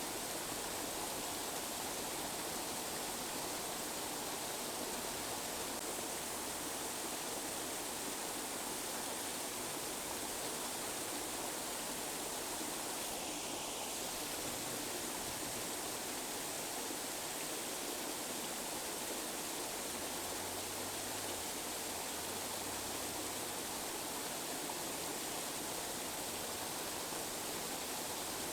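Steady tinnitus masking noise: an even, unbroken rushing hiss like running water, thin in the bass, that does not change in level or character.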